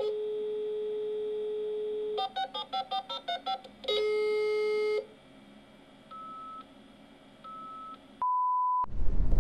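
Telephone line tones: a steady dial tone for about two seconds, then a quick run of about ten keypad dialing tones. Another steady tone follows for about a second, then two short higher beeps and, near the end, a single pure beep.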